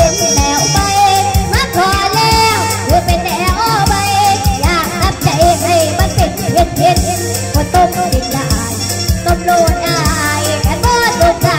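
A young girl's voice singing a Thai song into a microphone over music with a steady beat and regular percussion.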